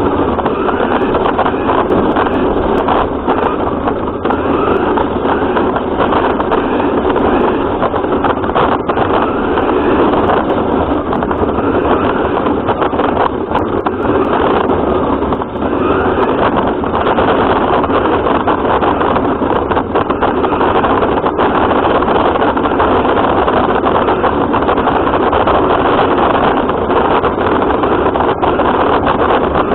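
A radio-controlled car driving, heard close up from a camera mounted on it: a steady, loud running noise with frequent small knocks and clicks.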